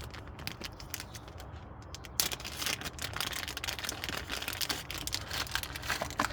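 Plastic packaging crinkling and tearing as a new ABS sensor is unwrapped, an irregular crackle that gets busier about two seconds in.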